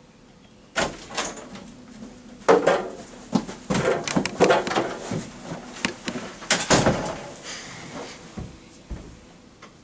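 A door opening, then a string of knocks, thumps and scuffs as two people hurry into a small office and sit down at a table.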